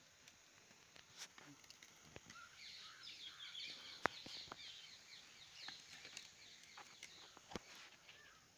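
Faint twittering of small birds for a few seconds in the middle, over sparse light clicks of a ladle scooping cooked papaya into a bowl, with one sharp tap about four seconds in.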